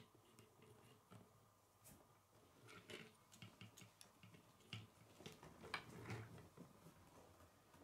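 Faint clicks and rattles of plastic K'nex pieces being handled and fitted together, coming in an irregular cluster that starts about two and a half seconds in and is loudest near six seconds.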